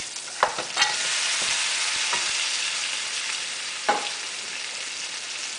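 Pieces of catfish going into hot frying curry paste in a pot, setting off a steady sizzle that swells about a second in, with a few knocks of a metal spoon against the pot as they are stirred.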